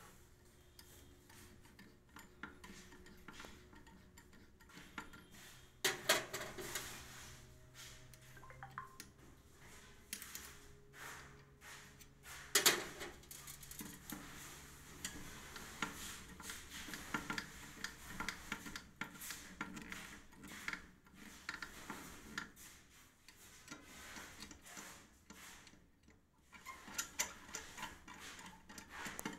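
Small metallic clicks, clinks and scraping as a stripped phase wire is worked into the brass terminal of a fuse cutout base by hand, with two louder sharp knocks about six seconds in and about twelve and a half seconds in.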